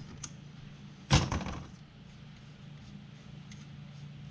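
A metal tool clanks once, sharply, against the steel parts of a snowmobile rear suspension skid about a second in, over a steady low hum, with a few faint clicks later.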